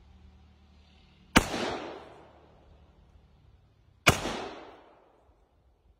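Two rifle shots from an AR-15-style rifle, about a second and a half in and again near four seconds in, each followed by an echo that fades over about a second.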